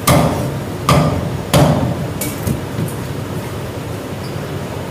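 Chinese cleaver chopping through cooked chicken onto a thick wooden chopping block: three hard chops in the first two seconds, then a few light knocks.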